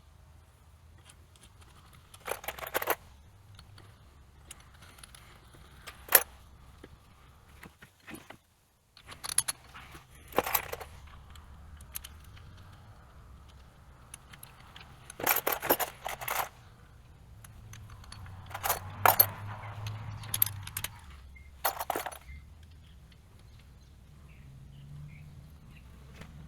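Small metal nuts and hardware clinking and jingling as they are handled and fitted to a flat-belt splice, in scattered short bursts over a faint low hum.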